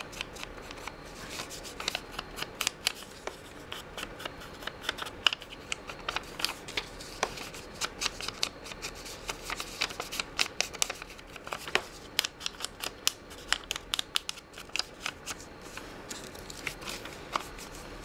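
Foam ink-blending tool dabbed and rubbed against the edges of a piece of torn book-page paper, a quick, irregular run of scratchy scuffs and taps on the paper.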